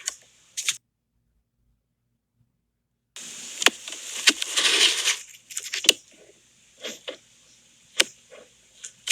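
Car's automatic transmission gear selector lever being shifted into the manual gate: about three seconds in, two seconds of plastic clicking and rubbing, then a string of separate single clicks.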